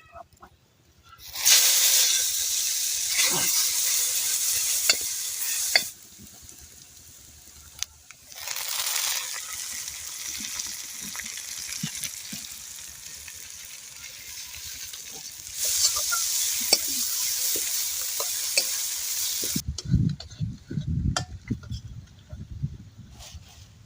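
Goat intestine pieces frying in hot oil in a pan: loud sizzling that surges about a second in, eases off, and surges again twice, with clicks of stirring against the pan. Near the end the sizzle drops away and low thumps and rumbles take over.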